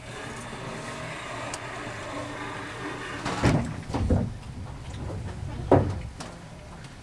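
Inside a passenger train carriage standing at a station: a steady hum, with three heavy knocks and thumps in the second half, the loudest about two-thirds of the way in.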